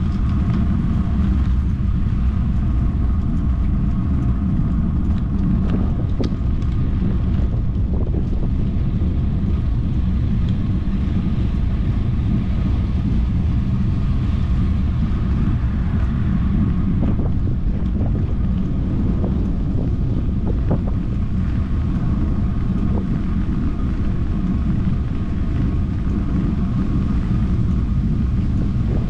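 Wind rushing over the microphone of a moving rider, a steady low rumble with a faint constant whine above it and a few light clicks.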